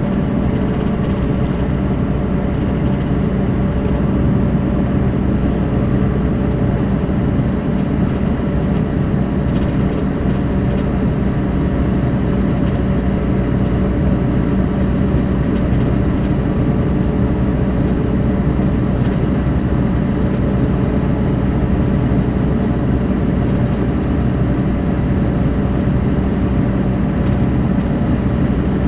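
Diesel engine of a Mercedes-Benz O500 RSD BlueTec5 coach chassis running steadily at an even speed, a constant low drone with no revving up or down.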